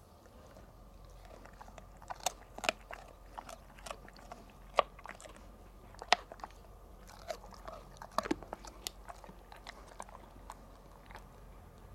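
Golden retriever chewing a dried pig ear, with irregular sharp crunches and bites that begin about two seconds in, loudest near the middle.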